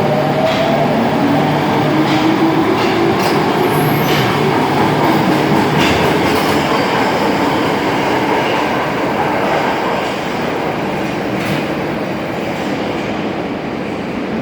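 Tokyo Metro Marunouchi Line subway train pulling out of the station: its traction motors whine, rising in pitch over the first few seconds as it accelerates, over a steady rumble of wheels with sharp clicks from the rail joints. The noise eases off somewhat in the last few seconds as the train draws away.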